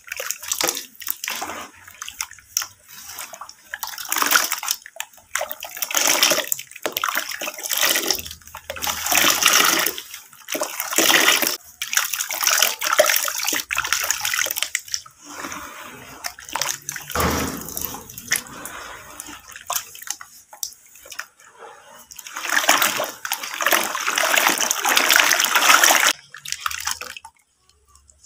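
Hands squeezing and swirling a wet slurry of crushed brick dust and water in a tub, making irregular wet squelches and sloshes that pause near the end.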